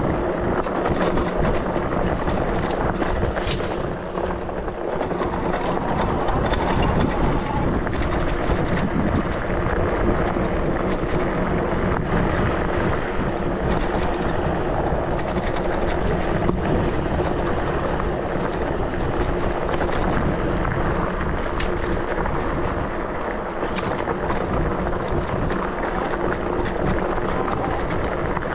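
Wind buffeting the microphone over tyre and trail rumble as an ENGWE X24 electric bike rides downhill off-road, with a steady hum underneath.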